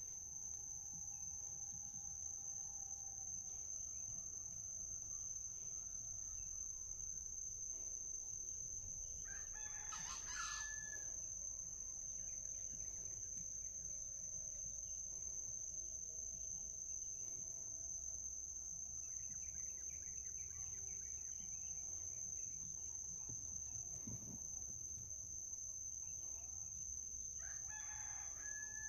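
Junglefowl cock crowing twice: a short crow about ten seconds in and another near the end.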